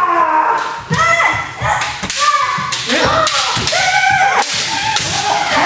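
Several kendo fencers shouting kiai, overlapping one after another, while bamboo shinai clack sharply together and feet stamp on the wooden floor.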